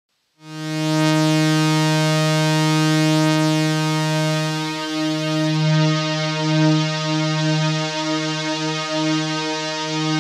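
Korg minilogue analogue synthesizer holding one sustained note through a Daisy Pod ambient effects patch of delay and LFO-swept filters. The note comes in about half a second in; past the middle its top end dulls and it begins to waver and pulse as the effect is adjusted.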